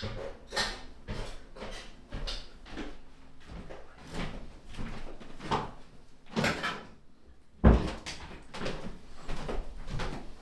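Irregular knocks and thumps of a person moving back into a small room, with one loud thump about three-quarters of the way through.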